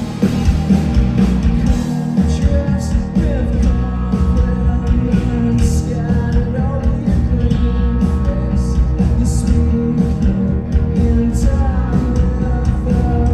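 Live rock band playing loud: electric guitars, bass guitar and drums, with a sung vocal.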